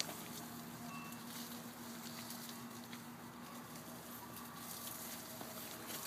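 Australian Shepherd puppy digging in loose dirt, its paws making soft, irregular scratching and small ticks, over a faint steady hum.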